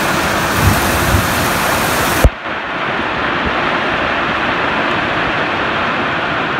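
Heavy wind-driven rain and gusting wind of a severe thunderstorm, loud and steady, with a couple of low bumps about a second in. A little after two seconds a sharp pop, after which the sound turns muffled, the sign of water getting into the iPhone's microphone.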